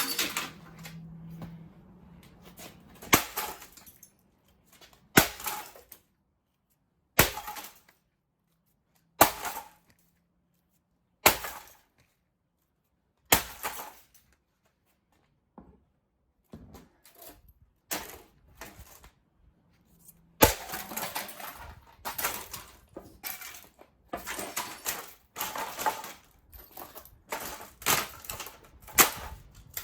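Blows smashing a 1985 Macintosh 512K. Single sharp strikes come about every two seconds, each with a short ringing tail. After a spell of faint rattling, a fast, continuous run of blows and breaking, crashing sounds takes over for the last third.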